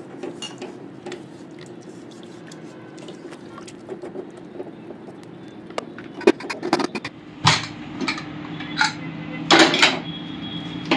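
Metal spoon clinking and scraping against a pressure cooker pot while curry is stirred, with several sharper, louder clanks in the second half.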